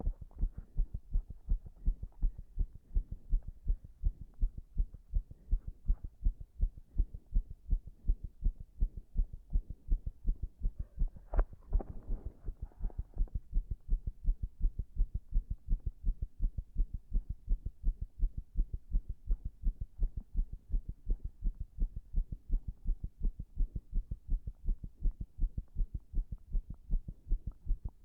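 A human heartbeat recorded close against the chest: low, muffled beats in a steady, even rhythm. A brief scratchy rub sounds about eleven seconds in.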